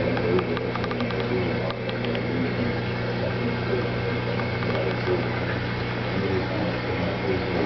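Steady low hum of aquarium equipment, with indistinct voices murmuring in the background and a few light ticks in the first couple of seconds.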